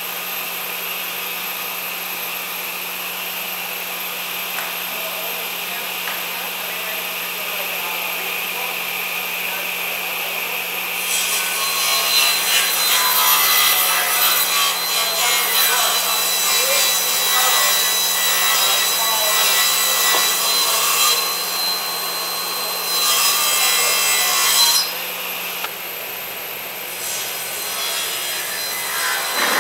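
Cabinet table saw running with its blade spinning, then cutting through a wooden board: about eleven seconds in, the steady whine turns into a louder, rougher sawing noise that lasts until about 25 seconds in, then settles back to the saw running.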